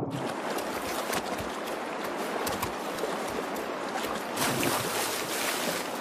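Creek water rushing steadily, broken by several short splashes from a black bear cub lunging at salmon, the loudest about four and a half seconds in.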